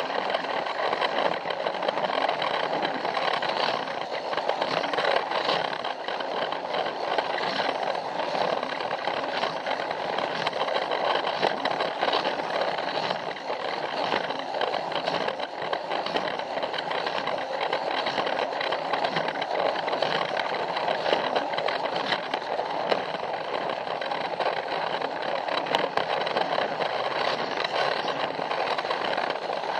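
Battery-powered Plarail toy train running steadily along plastic track, its small electric motor and gearbox whirring, with a fast run of small clicks and rattles from the wheels and track joints.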